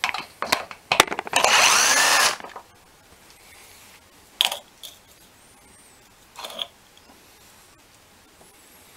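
Ingersoll Rand air gun running a bearing-retainer bolt out of a sterndrive lower unit: a few sharp clicks as the socket goes on, then about a second of the gun running. Two short, fainter bursts follow later.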